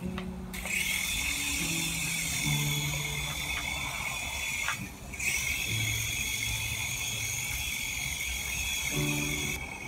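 Small electric RC helicopter with 3D-printed rotor blades in flight: a steady high-pitched motor and rotor whine that starts just after the start, cuts out briefly about halfway, comes back, and stops near the end.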